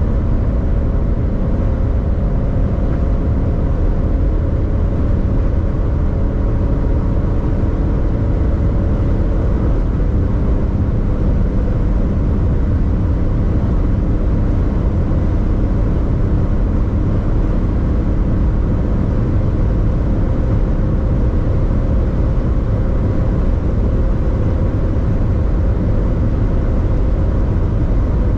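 Alpina XD3 quad-turbo six-cylinder diesel SUV running at high speed on a top-speed run: a loud, steady rush of wind and tyre noise with the engine's drone underneath. The engine's tones fade into the road noise about ten seconds in.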